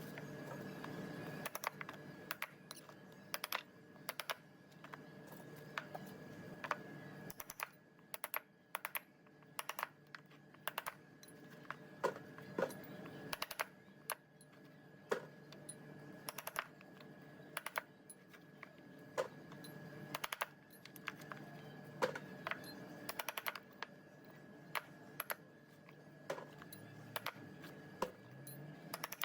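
Irregular sharp clicks and light taps, a few a second, over a steady hum with a thin high whine.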